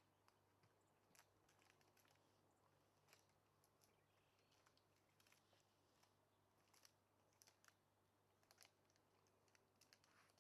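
Near silence: a faint steady low hum with scattered faint clicks.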